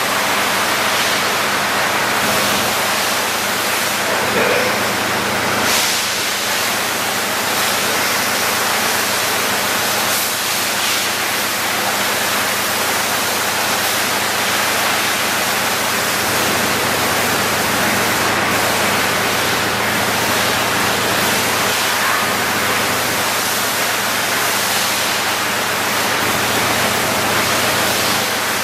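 Vacuum truck's vacuum pump system running: a loud, steady rushing hiss with a low hum underneath.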